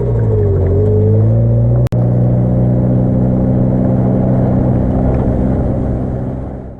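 Mitsubishi Lancer Evolution X's turbocharged 2.0-litre four-cylinder engine running, its revs dipping and climbing a little, then holding at a steady pitch after a brief cut in the sound about two seconds in. The sound fades out at the end.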